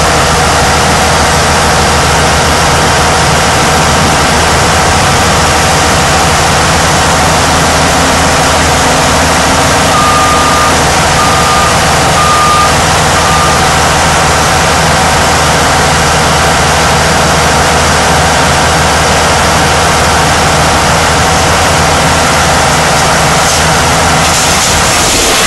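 Caterpillar 988H wheel loader's C18 diesel engine running loud and steady at close range. Partway through, a backup alarm beeps four times.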